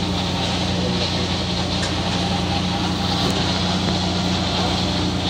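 An engine idling steadily: a constant low hum with a fast, even pulse underneath.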